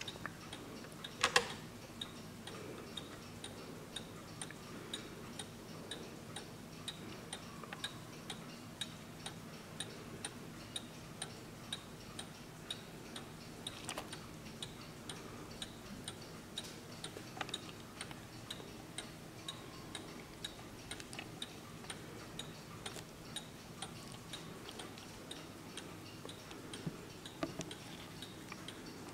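Antique 1880s German W&H triple-fusee mantel clock ticking steadily, about two ticks a second. A louder knock about a second and a half in comes as the case's back door is opened by hand.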